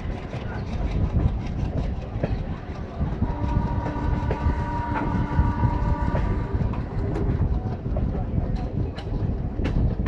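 WDM2 diesel-electric locomotive's ALCO 16-cylinder engine chugging under load as it pulls a passenger train away, with a heavy low rumble throughout. About three seconds in, its horn sounds one steady blast of roughly three and a half seconds, and a few sharp clicks come near the end.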